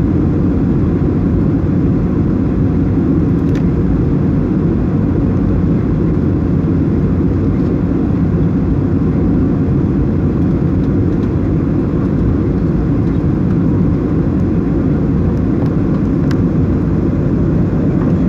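Cabin noise of a Boeing 737-800 with CFM56 engines during its final approach and landing: a steady, deep rumble of engines and airflow, with a couple of faint clicks.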